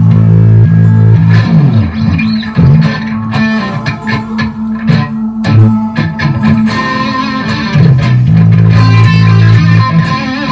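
Electric guitar, a 1983 Ibanez, played through effects pedals over an electronic backing track, with a steady low note held underneath.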